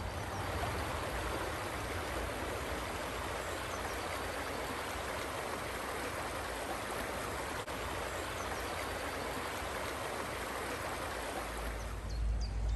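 Shallow woodland stream running over a stony bed and small riffles: a steady rushing babble. Near the end the water sound drops away and a low rumble comes in.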